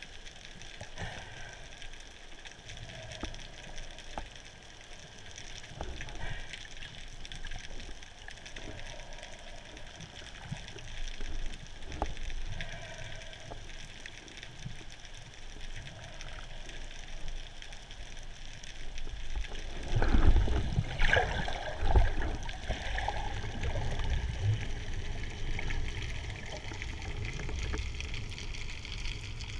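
Muffled underwater sound heard through a GoPro Hero3's waterproof housing: a low water rush with scattered faint clicks. About two-thirds of the way through it grows louder, with low rumbling and crackling.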